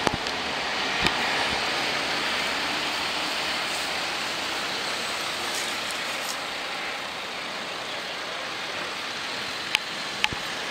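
Road traffic: a steady rush of cars driving past, with a couple of sharp clicks near the end.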